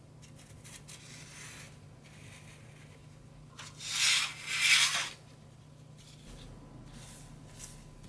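Scraping strokes of a squeegee drawn across a metal solder-paste stencil: a few faint strokes, then two loud strokes in quick succession a little after the middle.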